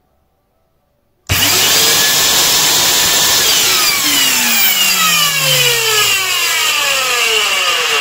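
Bare vacuum-cleaner motor switched on about a second in, running with excessive noise: a loud rushing hiss with whining tones that slide steadily downward. Its bearings have broken up, the front bearing probably badly.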